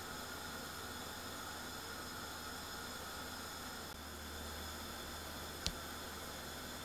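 Steady background hiss with a low electrical hum and a faint high whine, broken once by a single sharp click about two-thirds of the way through.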